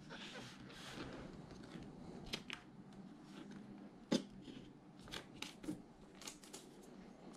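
A MacBook Pro in its protective film being lifted out of its cardboard box: faint rustling and sliding, then scattered small clicks and taps of fingers and the laptop against the box, the loudest about four seconds in.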